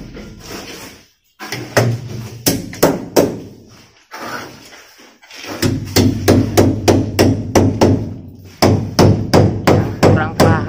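Hammer blows, each with a short ring. There are a few scattered strikes, a pause, then a steady run of about three blows a second from about halfway in: small nails being driven to fix an aluminium window frame into the wall.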